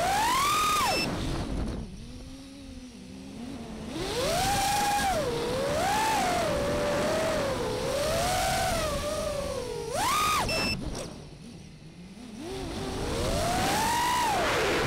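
FPV racing quadcopter's brushless motors and propellers whining, heard from the camera on board, the pitch swooping up and down with the throttle. Twice the whine falls away for a couple of seconds as the throttle is backed off, then climbs back.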